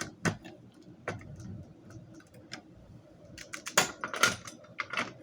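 Mechanism of a manual fire alarm pull station clicking and clacking as it is handled: a few separate sharp clicks, then a quicker run of clicks and knocks about three and a half to four and a half seconds in.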